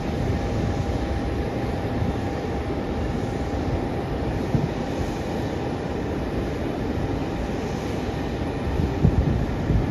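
Steady low rumble and hiss of airport ramp noise with a thin, steady whine running through it. A couple of dull low thumps come near the end.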